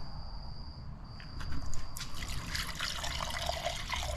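White vinegar being poured into the rusty cylinder bores of an Oldsmobile 455 engine block, trickling and splashing. It starts about a second in and grows stronger.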